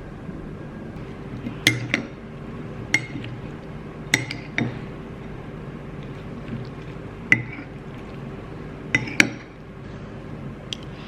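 Glass or dishware clinking: about eight sharp clinks, some in quick pairs, spread over several seconds, over a faint steady hum.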